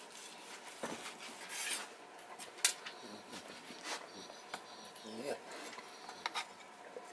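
Chef's knife slicing a seared steak on a wooden cutting board, with scattered light clicks and taps of the blade and steel tongs against the board and a short rasp as the blade cuts through.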